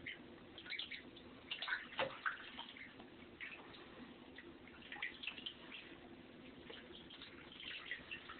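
Faint, light splashing and dripping of bathtub water as Pekin ducklings paddle, with scattered small splashes and drips.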